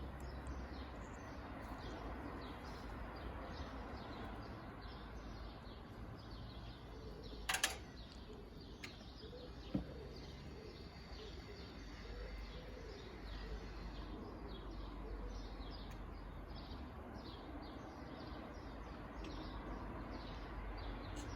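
Birds chirping over a low, steady outdoor rumble, with a sharp click about a third of the way through and a fainter one a couple of seconds later.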